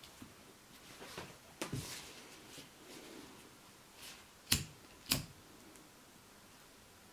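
A pocket lighter clicks sharply twice, about half a second apart, among soft handling rustles of webbing straps. The lighter's flame is used to melt and seal the straps' cut ends.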